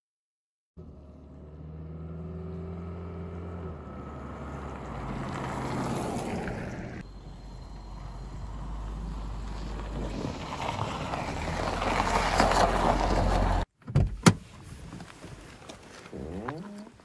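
A station wagon driving on a snowy road, its engine and tyres on packed snow growing louder as it comes closer. After a cut, a couple of sharp clicks from the car door and a brief whir of a power window motor near the end.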